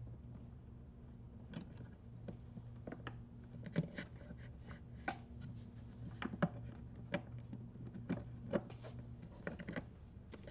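Irregular light clicks, taps and rubbing as wiring and a plastic connector are handled and pushed through a hole in a plastic panel. A low steady hum sits underneath.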